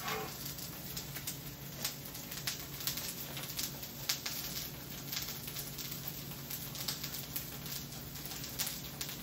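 Lion's mane crab cakes frying in oil in a pan, the oil crackling and popping in scattered, irregular ticks over a low steady hum.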